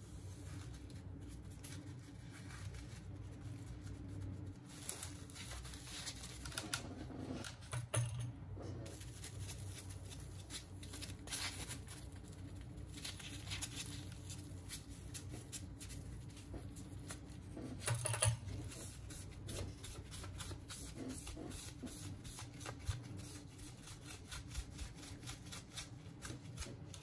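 Small clicks, taps and rubbing of hand tools and parts on a Samsung Galaxy Note 8 being opened up for a battery replacement, with two louder knocks. A steady low hum runs underneath.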